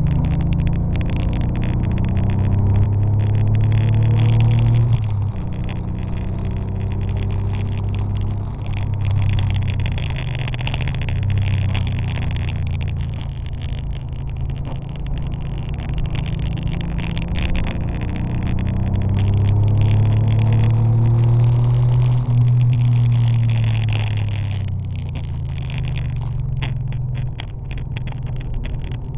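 Porsche 911 (964) air-cooled flat-six under hard driving, its pitch rising through the revs and dropping at each shift or lift, several times over.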